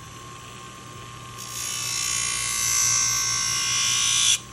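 Steel scissor blade held against the spinning honing wheel of a Wolff Industries Twice As Sharp sharpening machine, honing off the burr raised by grinding. A hissing rasp starts about a second and a half in, grows louder, and cuts off sharply near the end, over the machine's steady low hum.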